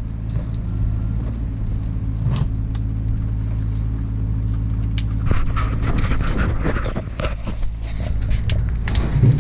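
A car engine idling with a steady low hum, with scattered clicks and handling noises over it.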